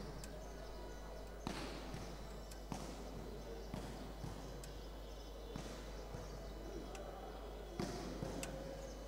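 A ball bouncing on a hard indoor court floor, about once a second with a slightly uneven beat, each knock echoing in a large sports hall. Under it runs a low murmur of voices.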